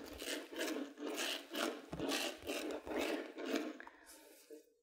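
Chef'n Palm herb mincer's rolling blades rasping back and forth over chives on a bamboo cutting board, about two strokes a second, stopping near the end.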